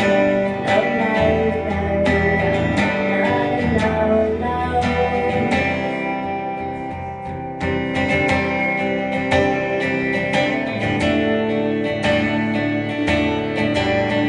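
A live band playing an instrumental passage, led by guitars picked and strummed over a bass line. The music dips in loudness briefly a little past the middle, then comes back in full.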